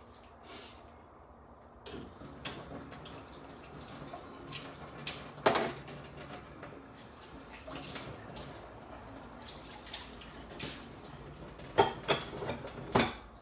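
Tomato fish-soup sauce bubbling at a simmer in a steel pan: a patter of small bubbles popping starts about two seconds in. There is a louder pop about halfway and a quick cluster of them near the end.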